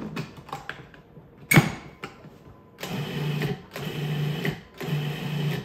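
A few light plastic clicks and one sharp knock as the feed-tube pusher is set into a food processor's lid. From about three seconds in, the food processor's motor runs in short pulses of under a second with brief gaps, chopping basil, parsley, pine nuts and walnuts into pesto.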